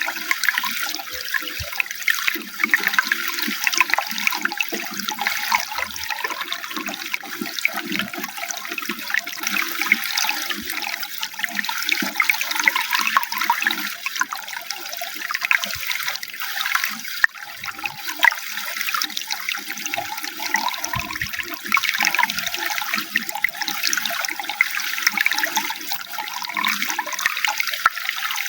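Running water pouring and splashing steadily, a bright hiss with gurgling underneath.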